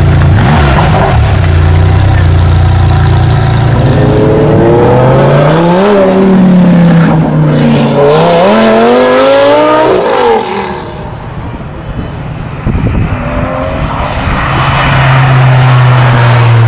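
Sports car engines in quick succession: a Porsche 993 Carrera RS flat-six idling, then a Lamborghini Gallardo V10 revved up and down twice with long rising and falling sweeps, then, after a drop in level, a car running past on the circuit near the end.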